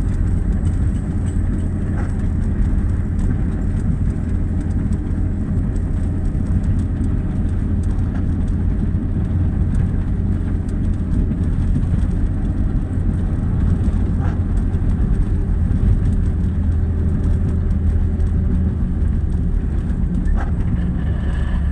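An engine running steadily at constant speed, a low even rumble, with a few faint clicks over it.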